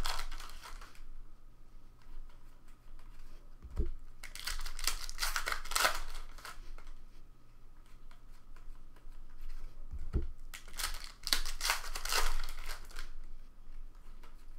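Foil trading-card pack wrappers crinkling and tearing as packs are opened by hand, in three spells of rustling. Two soft knocks, about four and ten seconds in.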